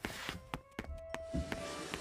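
Background music over a steady hiss, with several short knocks spread through.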